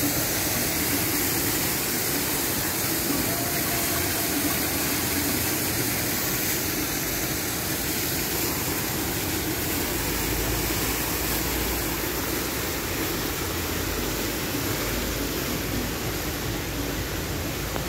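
Steady rushing water: a park fountain's single jet splashing into its pool, with rain falling on the water. A low rumble joins about ten seconds in.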